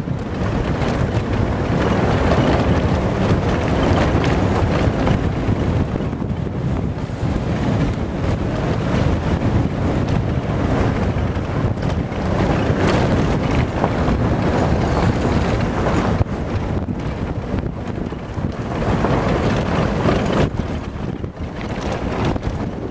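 Wind buffeting the microphone as the camera travels fast down a gravel road: a loud, rushing noise that swells and eases every few seconds.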